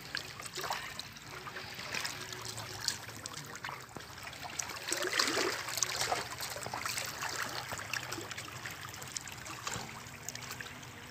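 Small sea waves lapping and trickling among the boulders of a rock revetment at the waterline, in irregular splashes that are busiest around the middle.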